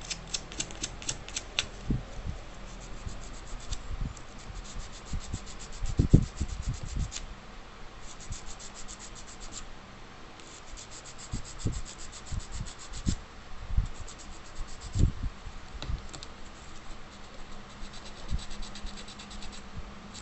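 Sandpaper rubbed quickly back and forth over the contacts of a TV's flexible flat ribbon cable, in runs of rapid scratchy strokes lasting a few seconds each. The sanding clears stubborn dirt off the contacts of the flex cable to the timing control board. A few dull knocks sound in between, the strongest about six seconds in.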